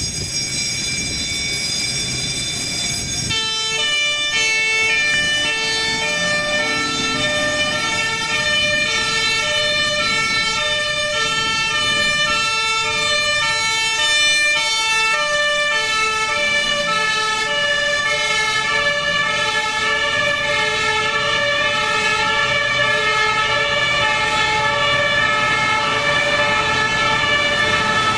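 Fire truck's two-tone siren, alternating steadily between a high and a low note about twice a second over the truck's engine. For the first three seconds it holds a steady tone, then switches to the alternating pattern.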